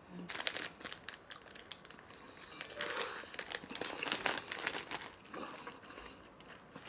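Plastic snack packaging crinkling and rustling as it is handled, in irregular scrunches that come and go, busiest in the middle.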